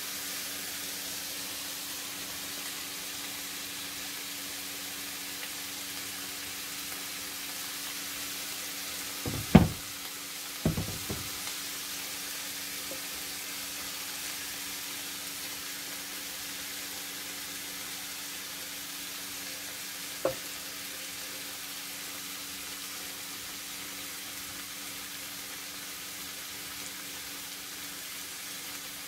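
Sliced cabbage, carrots and green beans sizzling steadily as they fry in a non-stick pan. Two loud knocks come about ten seconds in, and a lighter click about twenty seconds in.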